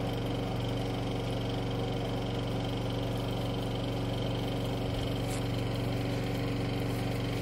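An engine running steadily at a constant speed, a continuous unchanging hum.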